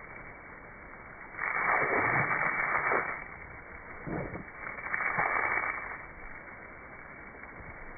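Water from a garden hose jet spraying and splashing as a border collie bites into it, heard slowed down: two loud swells of rushing noise, each about a second and a half long, over a steady low hiss.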